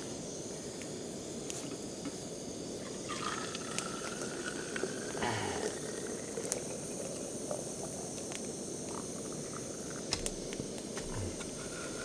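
Hot boiled water poured from a metal pot into a plastic water bottle, starting about three seconds in, with a faintly rising tone as the bottle fills. A steady hiss runs underneath, with a few small clinks.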